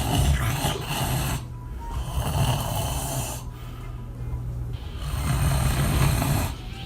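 A person snoring loudly: three long, rasping snoring breaths with short pauses between them.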